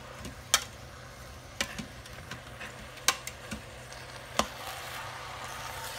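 Metal tongs clinking and scraping against the stainless steel inner pot of an electric pressure cooker as chicken and onions are stirred, a sharp clink every second or so. Under it is a soft, steady sizzle of the food frying.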